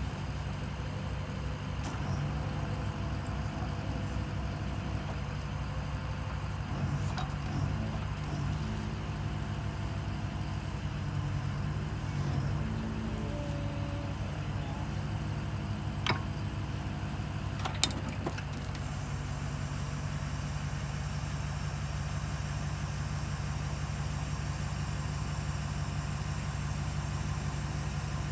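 Geoprobe direct-push drill rig running steadily, its engine and hydraulics working as the drive head is lowered. Two sharp clicks stand out past the middle, a couple of seconds apart.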